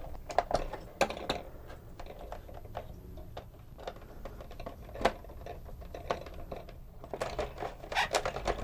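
Small parts of the Omnibot 2000's tray gear mechanism clicking and clattering as they are fitted together by hand. There are scattered light clicks, with a sharper one about halfway through and a quick run of clicks near the end.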